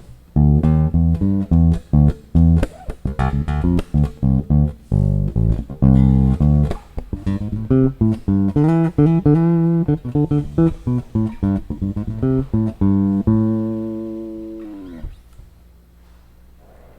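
Squier electric bass with Malagoli pickups, played on the neck pickup alone with the tone control fully open: a run of plucked notes, ending about 13 seconds in on a held note that rings out and fades over about two seconds.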